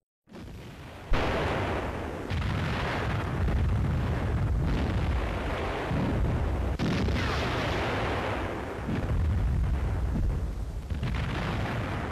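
Field artillery firing: a run of heavy booms, the first and sharpest about a second in, with fresh reports every two seconds or so and long rumbling between them.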